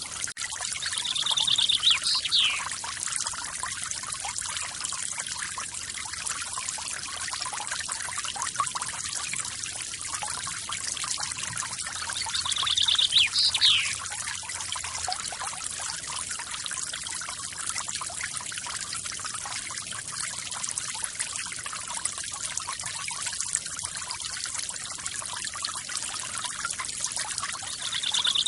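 Small forest waterfall splashing steadily. A bird calls a few times over it, about two seconds in, near the middle and at the end: each call is a short high note dropping into a quick falling slur.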